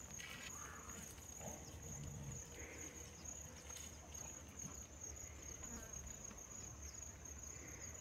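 Faint, steady, high-pitched insect chirring.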